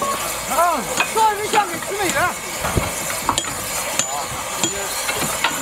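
Sharp metallic clinks, several of them with a brief high ring, as track workers handle tools at a rail joint, with men's voices talking in the first couple of seconds over a steady background hiss.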